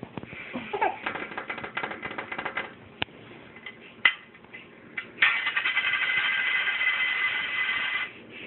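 A penny clicking and rattling as a cat paws and bites at it: a run of quick clicks, two sharp single clicks, then a steady rattle about three seconds long that cuts off suddenly.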